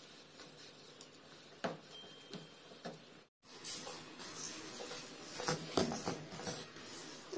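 Hand squishing and kneading a soft mashed cutlet mixture in a steel bowl, with occasional light knocks of fingers and bowl against each other. The sound cuts out for a moment about halfway through, then the mixing sounds come denser and closer.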